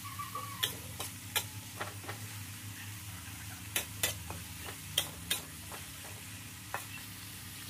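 Metal spatula stirring and scraping a stir-fry of chilies and garlic in an aluminium wok, with irregular sharp clinks against the pan over the faint hiss of the food frying. A steady low hum runs underneath.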